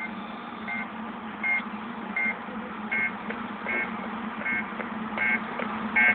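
Starship sound effects from a film soundtrack, played through a tablet's speaker: a short electronic beep repeating about every three-quarters of a second over a steady low hum.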